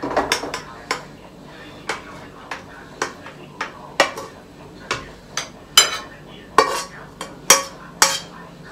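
Metal spatula clanking and scraping against frying pans in quick, uneven strokes, about two a second, as stir-fried morning glory is scraped from one pan into another.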